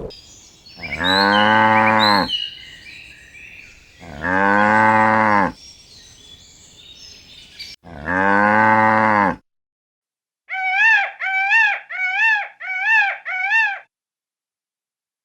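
Cow mooing three times, each low moo about a second long, a few seconds apart. After an abrupt cut, a different animal gives five short, high calls in quick succession near the end.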